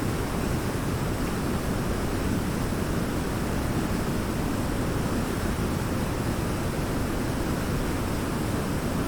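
Waterfall rushing steadily: an even, unbroken noise of falling water, heaviest in the low pitches.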